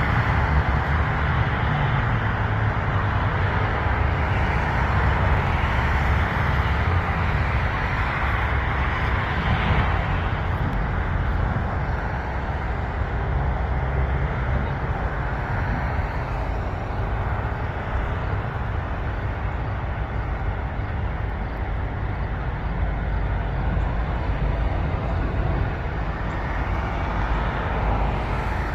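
Diesel freight locomotive leading an intermodal container train on the approach, a steady low rumble of engine and rolling wheels.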